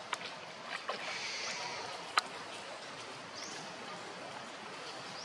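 Outdoor forest ambience: a steady rushing noise with a few sharp clicks, the loudest a single sharp click about two seconds in.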